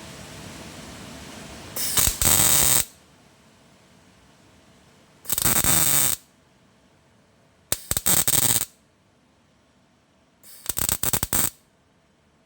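MIG welder laying four short bursts of about a second each, tack-welding repair-panel flanges on thin car body steel, now with its mixed shielding gas turned on so the arc runs instead of sputtering.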